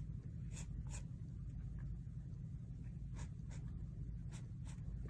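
A pen scratching on sketchbook paper in several short strokes, drawing lines, over a steady low hum.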